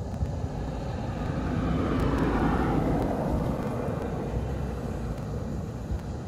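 A car drives past on the road: tyre and engine noise swells to a peak about two to three seconds in, then fades as it moves away.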